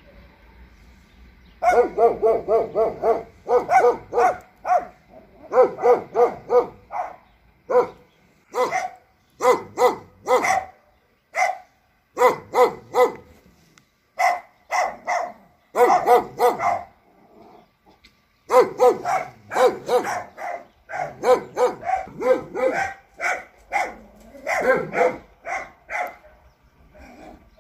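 Dog barking in rapid volleys of several barks a second, starting about two seconds in and going on with short pauses.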